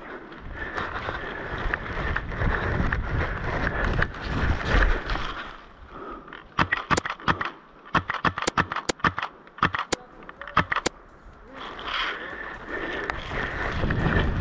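Scraping, crunching movement noise, broken from about six and a half seconds in by a string of sharp, irregular cracks, typical of airsoft guns firing; the scraping returns near the end.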